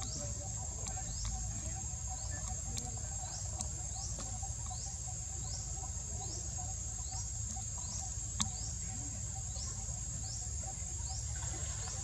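Insects buzzing outdoors: a steady high drone with a short rising chirp repeating a little more than once a second, over a low rumble. A single sharp click sounds about eight seconds in.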